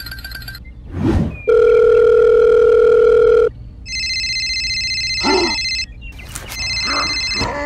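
Telephone sound effects: a steady dial tone for about two seconds, then an electronic phone ringtone trilling in two bursts. A short whoosh comes about a second in.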